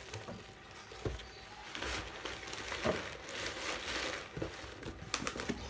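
Crinkling of a plastic bag and rustling of a cardboard shipping box as hands rummage through it, with a few short knocks and bumps of the cardboard.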